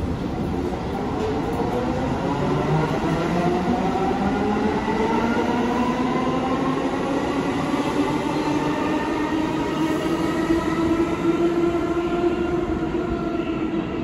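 New York City subway train accelerating away, its traction motors whining in a rising pitch that levels off near the end, over the rumble of the wheels on the rails.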